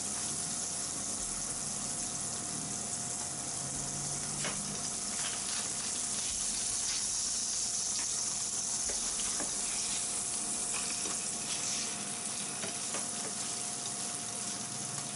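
Sea bream fillets frying slowly in butter in a non-stick frying pan: a steady sizzle with scattered small crackles.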